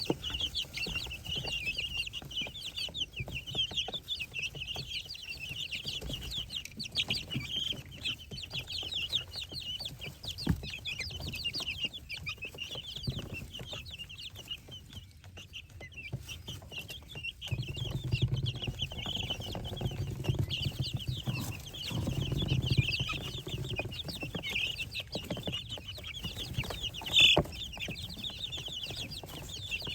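A brood of baby chicks and guinea keets peeping continuously, many high peeps overlapping, with one louder call near the end. A low rumble runs underneath for several seconds past the middle.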